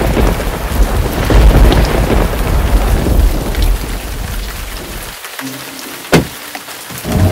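Rain with a deep rumble of thunder that dies away over the first five seconds, then a single sharp crack a little after six seconds in.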